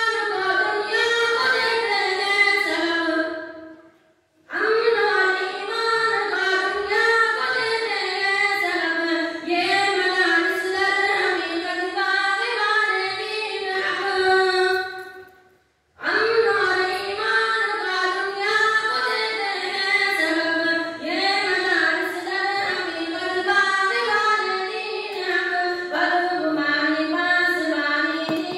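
A boy singing the madrasa's tarana (anthem) solo into a microphone, with no instruments, in long wavering melodic phrases. He breaks off twice for a breath, about four and fifteen seconds in.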